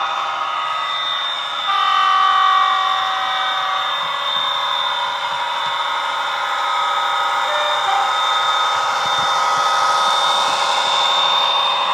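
Model Class 57 diesel locomotive's DCC sound decoder playing its diesel engine sound through a pair of small tablet speakers, with a horn sounded about two seconds in and a short note near eight seconds, as the model runs past.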